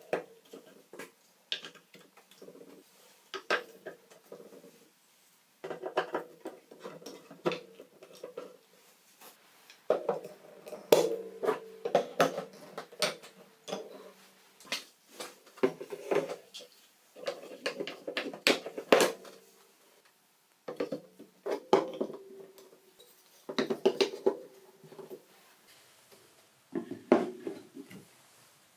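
Colourful balls rolling and clattering down a TrixTrack marble run of wave slopes: bursts of rolling rumble dotted with sharp clicks as the balls hit the track, coming in waves with short lulls between, busiest in the middle.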